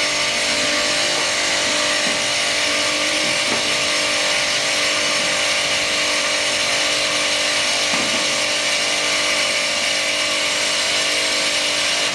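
Bench grinder with an abrasive rubber sharpening wheel and a buffing wheel running steadily at speed: a constant hum under an even hiss.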